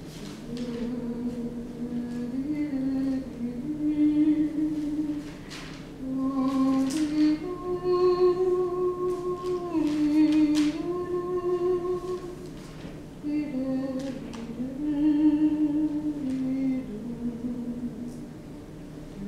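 A person humming a slow, wordless tune, holding each note and stepping between pitches, with short breaks about six and thirteen seconds in.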